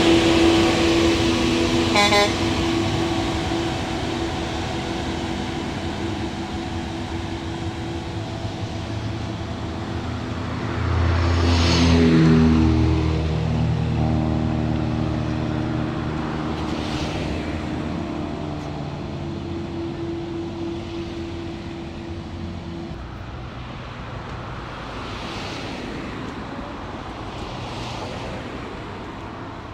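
Rail track maintenance machine's engine running steadily as it moves away along the track, with a short horn toot about two seconds in. A road vehicle passes close about twelve seconds in, the loudest moment, and the engine note fades into road traffic noise by the end.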